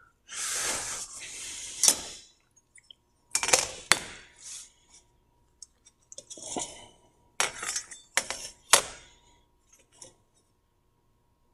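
A steel rule scraping and clinking on a sheet of galvanized sheet metal. It slides across the sheet for about the first two seconds, then there is a string of sharp metallic clinks as the rule is set down and repositioned.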